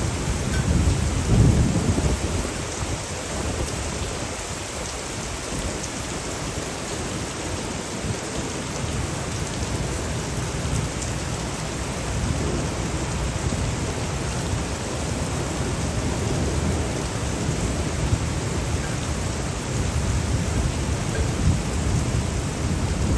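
Steady rain falling, with low rumbles that swell and fade several times, the strongest about a second in.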